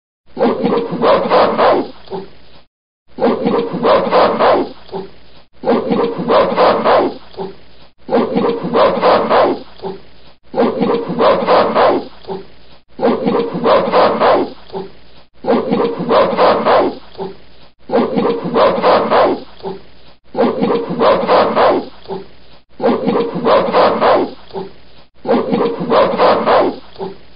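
Recorded gorilla calls: a quick run of several loud calls trailing off into quieter sounds, played as a loop that repeats identically about every two and a half seconds, eleven times over.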